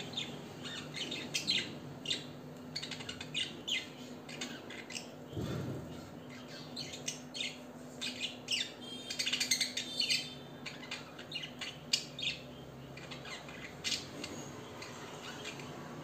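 A pair of pet budgerigars chattering: a quick, irregular run of short high chirps and warbles, busiest about nine to ten seconds in.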